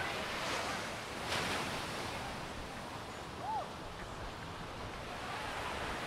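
Small sea waves breaking and washing on a sandy beach: a steady surf wash, with wind buffeting the microphone. About halfway through there is one short call that rises and falls in pitch.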